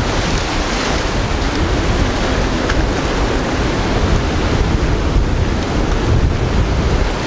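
Ocean surf washing and breaking over a rocky shore, with wind buffeting the microphone in a steady low rumble.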